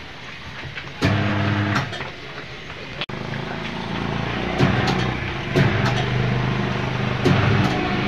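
Automatic tyre changer's turntable motor humming in several runs, starting about a second in, while a stiff motorcycle tyre, hardened from long storage, is forced over the rim by the mounting head. A sharp knock about three seconds in.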